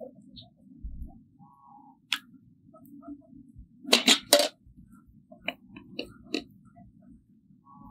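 Open wood fire crackling, with a steady low rumble and scattered sharp pops; two loud cracks about four seconds in are the loudest.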